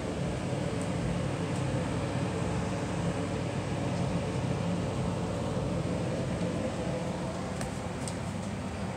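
A steady mechanical hum with a low drone, unchanging throughout, with a couple of faint ticks near the end.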